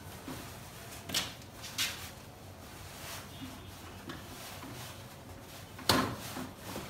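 Handling sounds as a mosquito net is pulled off the plastic canopy frame of a swing bassinet: a few short clicks and scrapes, the sharpest click near the end.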